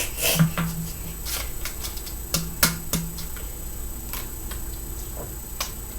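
Someone drinking soda: scattered light clicks and taps from the can and mouth, with two short low hums about half a second in and again near the middle.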